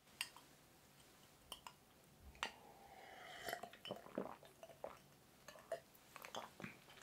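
A glass mug lifted off the table with a light clink, then a drink sipped and swallowed in gulps, with small wet mouth and throat clicks.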